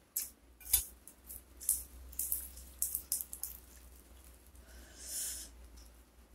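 Crisp, irregular crackles and rustles close to the microphone as fresh raw herb leaves are picked and pinched by hand, with a soft thump a little under a second in and a longer rustle about five seconds in.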